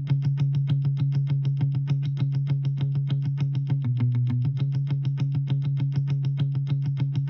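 Programmed electric guitar part from a MIDI remake, picking one low note in fast, even strokes, about eight a second. It drops to a lower note briefly about four seconds in, then goes back.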